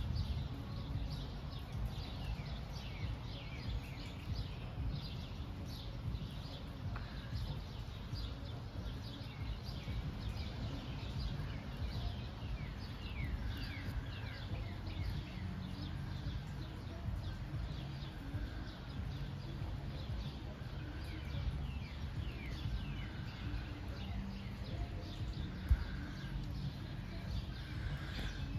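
Songbirds chirping and singing in quick, repeated downward-sweeping notes, over a steady low rumble. A single sharp click sounds near the end.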